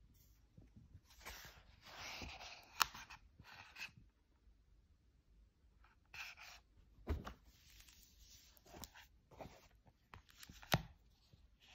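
Pages of a large illustrated hardback book being turned by hand: bursts of paper rustling, with three sharp knocks as the book and a CD case are handled.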